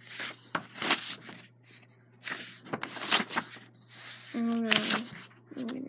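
Paper pages of a book being flipped and rustled in several bursts, with a brief hummed voice sound near the end.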